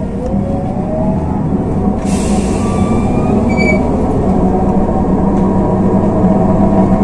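LiAZ 6213.22 articulated city bus heard from inside while under way: engine and drivetrain hum, with a rising whine in the first second and the overall level slowly climbing as it gathers speed. A short hiss of air comes about two seconds in, followed by a few brief high-pitched tones.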